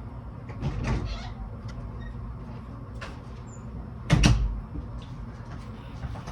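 A few short clicks and knocks from handling a compact camera and its parts, the loudest about four seconds in.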